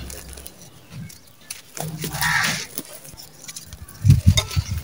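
Hands crumbling dry clods of red dirt: scattered gritty crunches and crackles as the clumps break apart, then from about four seconds in a run of loud, dull thuds as chunks are crushed.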